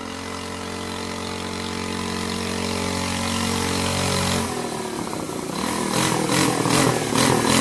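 A pocket bike's small engine idling steadily, then about four and a half seconds in its note changes and it revs in a string of short bursts. It is warmed up and running well, though it still needs its carburetor cleaned.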